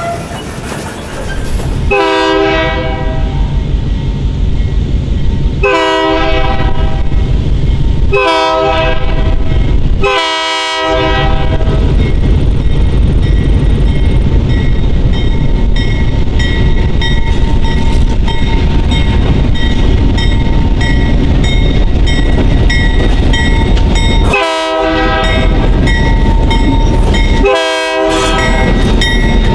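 Freight train passing close by, its locomotive horn sounding four blasts in the first eleven seconds and two more near the end, over the steady heavy rumble of the engine and rolling wheels.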